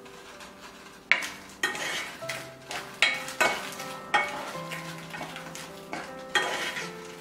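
Garlic slices and dried red chilies sizzling in oil in a small nonstick pan, with a spoon stirring and scraping across the pan in repeated strokes from about a second in.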